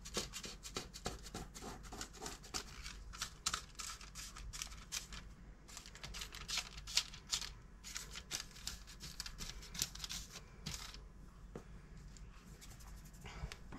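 Baking paper crackling and rustling under hands that press and pinch up the rim of a pizza base: a faint, irregular run of small crackles and ticks.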